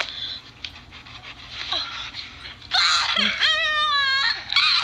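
A few short high squeaks, then a long, high-pitched squealing cry lasting about a second and a half, starting near the middle, and another brief squeal near the end.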